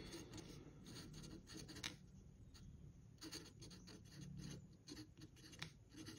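Marker pen writing on paper: faint, short strokes of handwriting, one after another.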